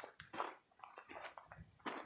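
Footsteps crunching on a woodland trail at a walking pace, about one step every 0.7 seconds.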